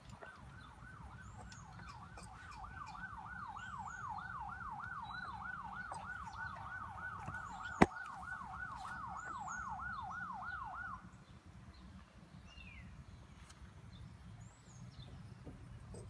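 Siren warbling fast, its pitch sweeping up and down about two and a half times a second, then cutting off abruptly about eleven seconds in. A single sharp click about eight seconds in, and small high chirps throughout.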